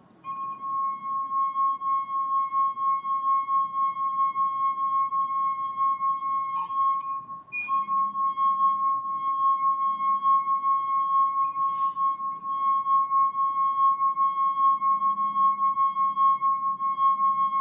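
Stemmed wineglass singing as a finger circles its rim: the bowl rings at its resonant frequency in one high, steady tone with fainter overtones, wavering slightly in loudness as the finger goes round. The tone breaks off briefly about seven seconds in, then starts again.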